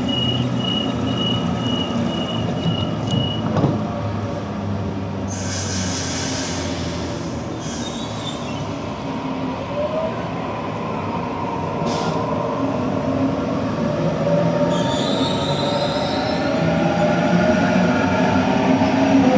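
Sydney Trains Waratah Series 2 electric train at a platform: a pulsed door-closing warning tone, then hisses of air, then a rising whine from the traction motors as the train pulls away and gathers speed.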